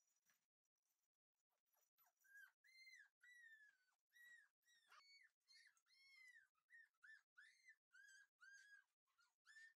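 Shiba Inu puppy whining: a run of short, high-pitched, arched whimpers, about two a second, starting about two seconds in. Faint throughout.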